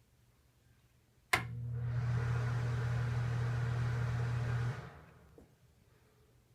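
Bathroom exhaust fan switched on with a sharp click, running with a steady hum and rush of air for about three and a half seconds, then switched off and quickly winding down, followed by a faint click.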